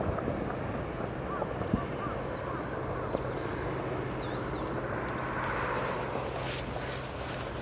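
Steady low rumble of an erupting volcano. A bird's thin, high whistled calls come in about a second in and run to about four and a half seconds.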